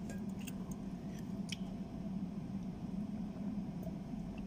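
Steady low hum of room background noise, with a few light clicks and taps in the first second and a half and one more near the end.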